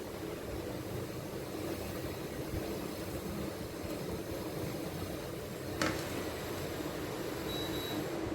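A kitchen appliance running with a steady hum, a single click about six seconds in, then short high electronic beeps near the end.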